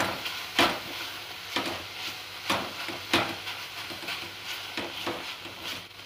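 Silicone spatula stirring and scraping a paneer and sugar mixture around a pan as it roasts on the stove, a soft scrape roughly every second over a steady sizzle. The mixture is in the last stage of roasting, with the burfi nearly ready.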